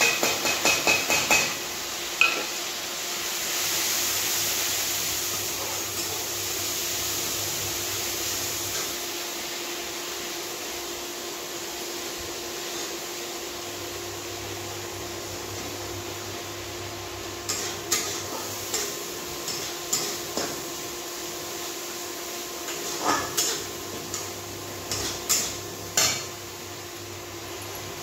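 Metal spatula knocking and scraping against a steel kadhai as onions and ground masala are stirred and fried: a quick run of clatter at the start and scattered knocks in the second half. A steady frying sizzle runs between them.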